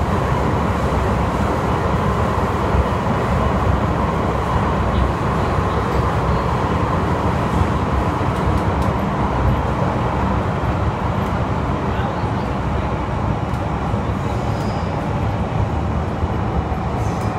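Inside a Metro Cammell M-Train electric multiple unit on the MTR running underground: a steady rumble of wheels and car body, with a faint whine that eases off.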